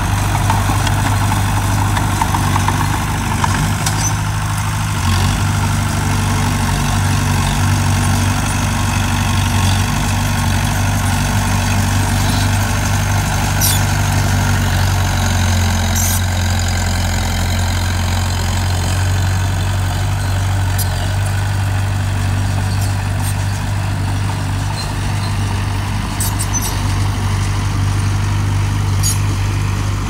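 Diesel engine of earthmoving machinery running steadily, with a few faint sharp clicks over the hum.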